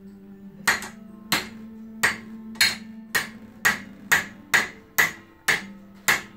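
Claw hammer tapping a steel axle bolt through a scooter wheel's hub and new bearings: about eleven sharp metal strikes, a little under two a second, at an even pace.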